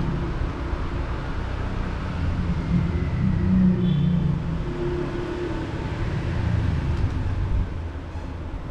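Low rumble of a motor vehicle running, swelling a few seconds in and again later, then easing off near the end.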